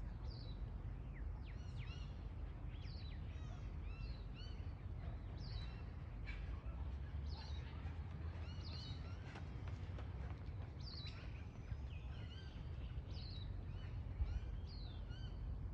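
Small wild birds calling, a run of short sweeping chirps coming every second or so, over a steady low rumble.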